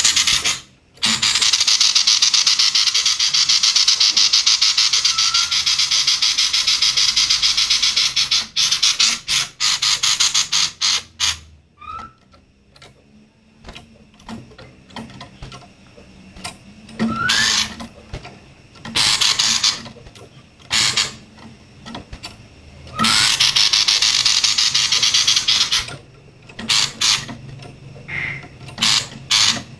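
Female sirtu songbird giving a harsh, buzzing 'konslet' chatter, coarse like a kingfisher's call: one long rasping rattle lasting several seconds, then shorter rattles in bursts, several of them opening with a quick rising note.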